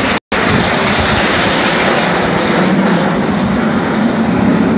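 Formation of jet aircraft flying over, a steady loud noise of jet engines that grows a little deeper after the middle. The sound drops out for an instant just after the start.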